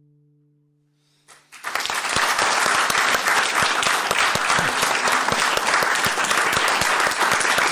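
The last note of a song fades away, then a small audience breaks into applause about a second and a half in and keeps clapping steadily.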